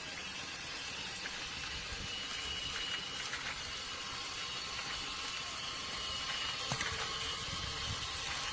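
Food roasting on a charcoal rotisserie: a steady sizzling hiss with scattered light crackles and a faint high whine.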